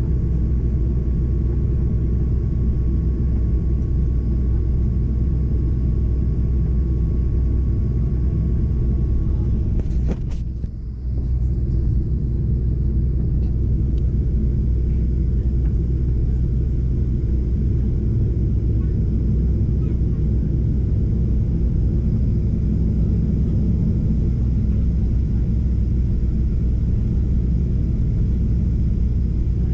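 Steady low rumble inside the cabin of a Boeing 737-800 on the ground, its CFM56 engines running at low power along with the cabin air system. About ten seconds in the sound drops briefly for about a second, and a faint high steady tone stops around the same time.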